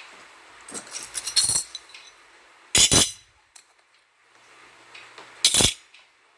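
Miniature stainless-steel bowls clinking and ringing as they are set down and nested inside one another, in three bouts: a rattle of small clinks around a second in, a loud double clink about three seconds in, and another loud clink near the end.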